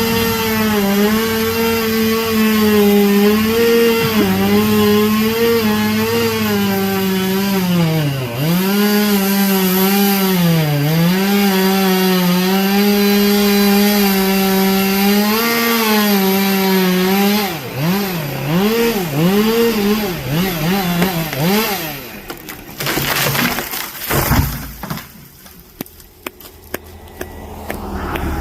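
Chainsaw running hard as it cuts into wood, its engine note sagging twice as the chain bogs in the cut. It then revs up and down in short blips and stops. A loud crack or crash follows near the end.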